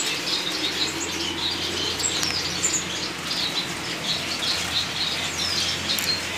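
A flock of caged finches chirping and twittering together, many short high calls overlapping, with wings fluttering in the cages.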